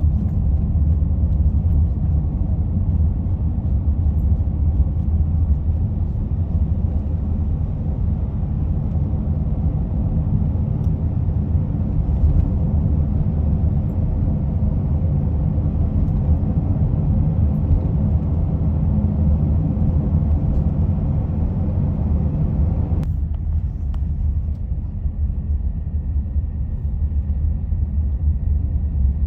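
Steady road and engine rumble inside a moving minivan's cabin. The higher hiss cuts away suddenly about three-quarters of the way through, leaving the low rumble.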